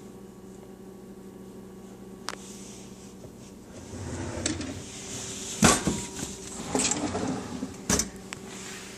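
Kitchen drawers being opened and shut, with the kitchen utensils inside rattling. There are two sharp knocks, the loudest about halfway through and another near the end, over a steady low hum.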